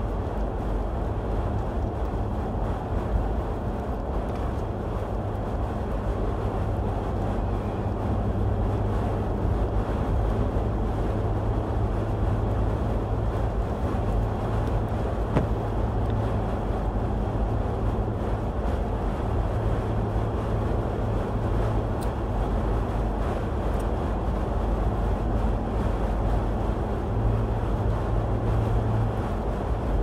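Steady in-cabin road noise of a vehicle driving at highway speed on a wet, snowy road: a constant low rumble of tyres and engine with a steady low hum underneath.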